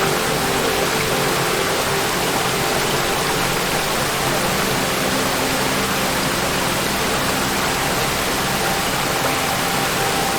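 Waterfall: a steady, even rush of falling water, with a few faint held tones underneath.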